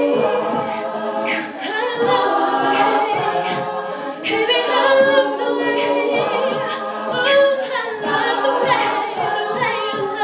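All-female a cappella group singing in layered harmony, with a steady beat of sharp percussive hits about every second and a half.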